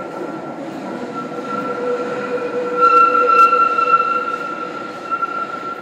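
Rail car wheels squealing in a steady high tone over a low running rumble, louder about halfway through and then easing off.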